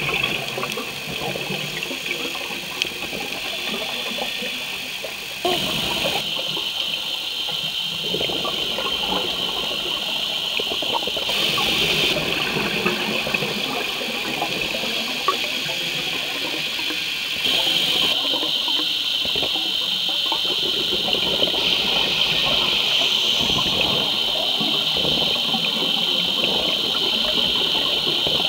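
Underwater ambience picked up by a submerged camera: a steady hiss with gurgling, bubbling water noise, its tone shifting abruptly a few times.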